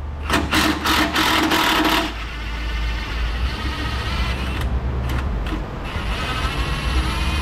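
Cordless impact wrench hammering on a bolt for about a second and a half, then running on more quietly.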